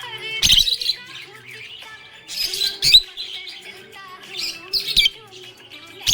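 Budgerigar chirping in several loud, quick bursts of high chirps, with quieter chatter between them.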